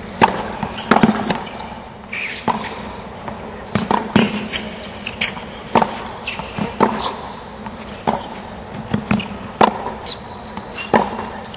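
Tennis rally on a hard court: sharp racket hits on the ball and ball bounces come in an irregular rhythm, about a second apart, over a low background hum from the stadium.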